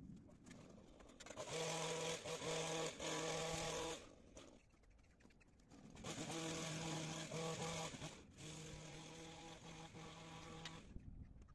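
Pole hedge trimmer running in two bursts, the first of a few seconds and the second longer, with a steady buzz that dips briefly now and then as it cuts across the top of the hedge.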